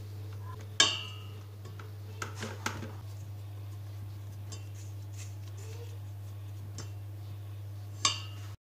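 Silicone spatula scraping dough and knocking against a stainless steel stand-mixer bowl and dough hook: a sharp knock about a second in, two lighter taps around two and a half seconds, and another knock near the end, over a steady low hum.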